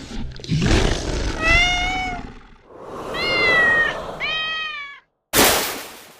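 Kitten meowing three times, high and plaintive, over a rushing noise, with a sudden loud burst of noise near the end.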